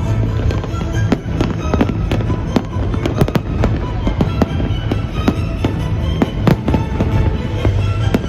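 Fireworks display: frequent bangs and crackles of bursting fireworks, several a second, over music playing throughout.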